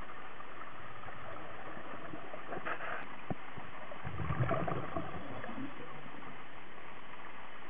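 Water sloshing and gurgling over a steady hiss, with a brief louder stretch of low splashing about four seconds in.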